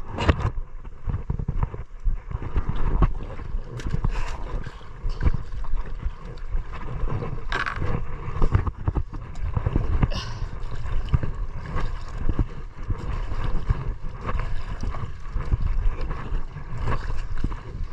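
Water sloshing and gurgling around a small fishing boat's hull, with uneven wind rumble on the microphone. A few short sharp knocks come through, about 4, 7.5 and 10 seconds in.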